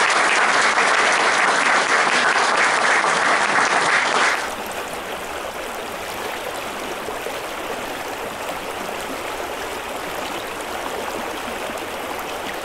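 Audience applauding, cut off suddenly about four seconds in by the steady rushing of a shallow river running over stones.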